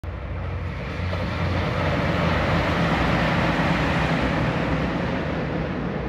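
JR Shikoku 2700 series diesel train running across a steel truss river bridge: a steady, loud train noise that builds after about a second and stays strong through the middle.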